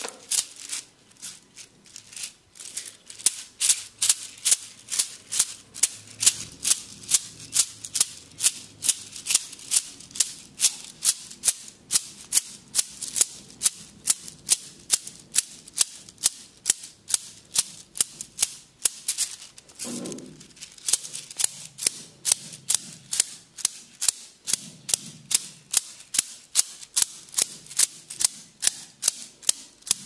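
Bamboo sticks tapping in a percussive head massage: a steady run of sharp wooden clacks, about three a second. A short low sound cuts in about two-thirds of the way through.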